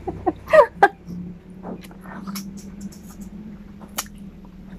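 A woman's short laugh in the first second, then quiet eating sounds and small clicks over a steady low hum, with a bite into a grilled green chili near the end.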